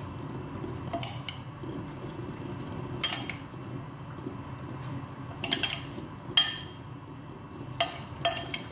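A spoon clinking and scraping against a ceramic bowl and baking dish as a tomato and olive mixture is spooned out: about six sharp clinks a second or two apart, over a steady low hum.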